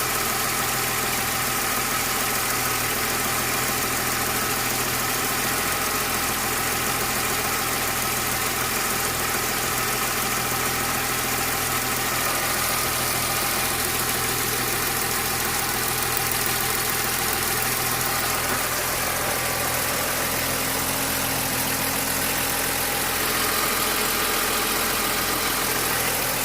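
BMW S50 straight-six engine idling steadily, with a noise the owner finds strange; a further steady tone joins about twenty seconds in.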